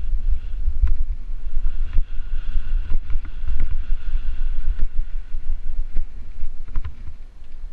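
Wind buffeting an action camera's microphone on a moving bicycle: a loud, steady low rumble with scattered clicks and knocks from the bike over the road surface. It eases briefly near the end.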